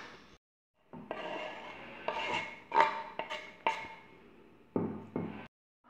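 Knife scraping diced red onion off a wooden cutting board into a bowl, with a handful of sharp clicks and knocks of the blade against board and bowl.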